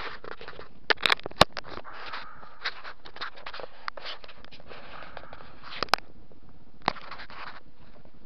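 Handling noise from fingers rubbing and scraping over an action camera as it is turned in the hand. Sharp clicks cut through it: a quick cluster about a second in, then two just before six seconds and one near seven.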